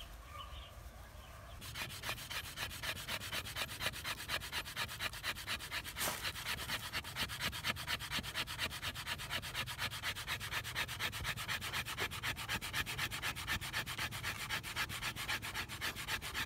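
Fire plough in use: a wooden stick rubbed hard and fast back and forth along a groove in a dry log, wood scraping on wood in quick, even strokes, about five a second. The strokes start about a second and a half in and grind up wood dust toward an ember.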